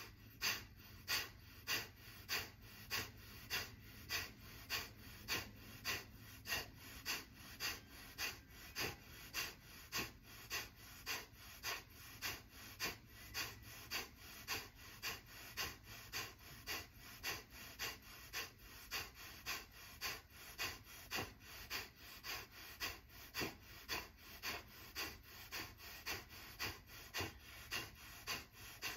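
Kapalbhati breathing: a steady train of short, forceful exhales through the nose, nearly two a second, each pushed out by a snap of the belly while the inhales come passively between them.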